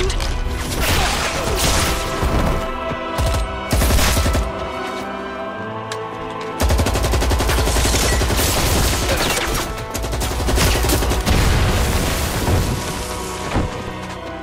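Film battle sound effects: dense rapid gunfire with machine-gun bursts, and a heavy blast with a deep boom setting in about six and a half seconds in, all over dramatic background music.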